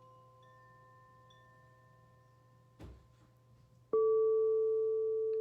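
Faint chime tones fade away, with a soft knock about three seconds in. Near the end a tuning fork is struck and rings on as a loud, steady, almost pure tone.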